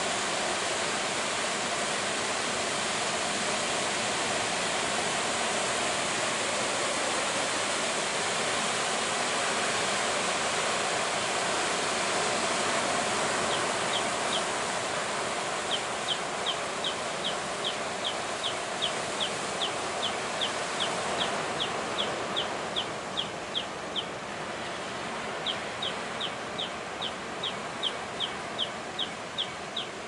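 Heavy surf breaking on a beach, a steady roar of waves. From about halfway through, a bird gives a rapid series of short high chirps, about three a second, pausing briefly and then going on to the end.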